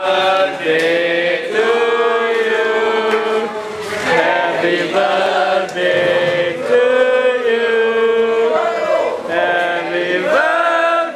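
Vocal music: voices chanting in long, held notes that slide from pitch to pitch, with no clear beat.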